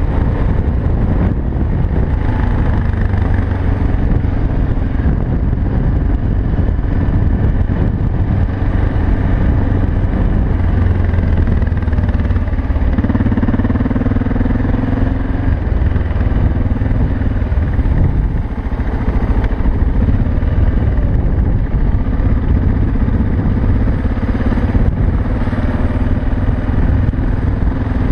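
BMW 650 GS single-cylinder motorcycle engine running continuously under way, its note shifting up and down a little with throttle and speed.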